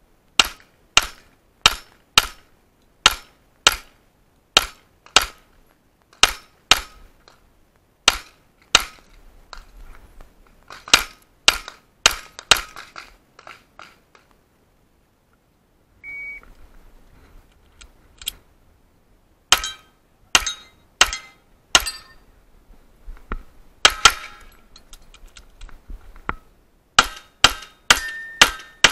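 Rapid pistol fire from a 9mm Smith & Wesson M&P 9 with a ported slide, shots coming about half a second apart in long strings. A little past halfway the firing stops and a short electronic shot-timer beep sounds, the start signal, after which strings of shots resume.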